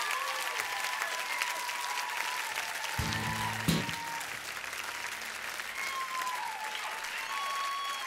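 Concert audience applauding with whistles, and a single guitar chord struck about three seconds in, ringing out for a couple of seconds.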